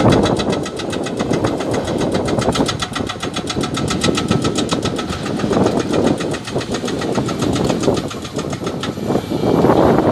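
Hydraulic rock breaker on an excavator hammering rock in rapid, evenly spaced blows over the diesel engine running. The hammering stops about nine seconds in.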